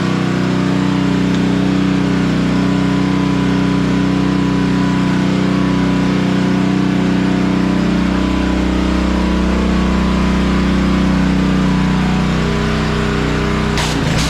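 Honda gas pressure washer's small engine running steadily under load, over the hiss of the high-pressure water spray.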